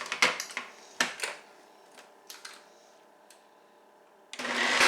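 A few sharp clicks and knocks, then a countertop blender switches on near the end and runs loud and steady, blending a smoothie of frozen berries and ice cream.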